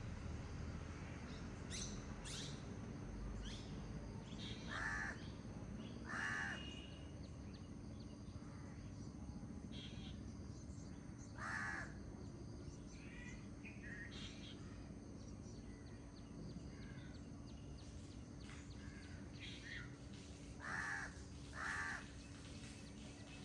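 Forest birds calling: a larger bird gives five loud calls, the last two in a quick pair, over scattered high chirps from smaller birds and a steady low rush of flowing water.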